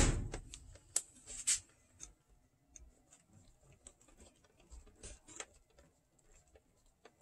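Small clicks and ticks of a screwdriver working screws into a cassette deck's plastic and metal mechanism. A sharp knock comes right at the start, then two louder clicks about a second in, then scattered faint ticks.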